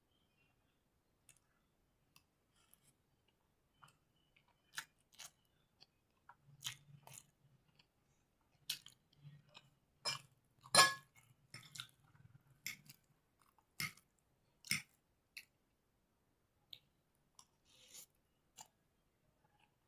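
Close-up chewing of chowmein noodles: scattered wet mouth smacks and clicks at irregular intervals, loudest about ten to eleven seconds in, with quiet gaps between.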